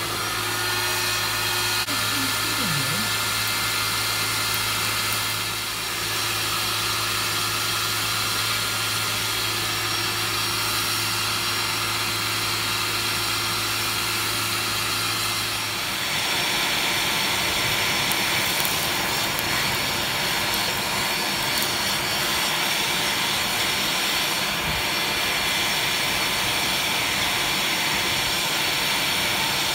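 Electric blower running, forcing air up through a charcoal forge's burning fuel: a steady rushing noise with a low motor hum. About halfway through the hum drops out and the rush turns brighter. The builder judges the blower's airflow too high, burning the charcoal quickly.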